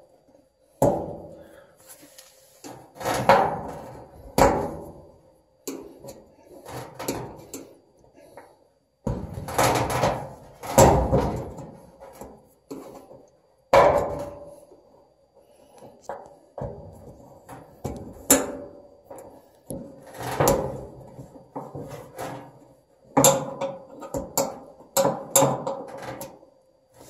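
Screwdriver prying at a stubborn plastic retaining clip on a dryer drum support wheel: irregular clicks, scrapes and knocks of steel against the clip and the dryer's sheet-metal cabinet, coming in short bursts with pauses between.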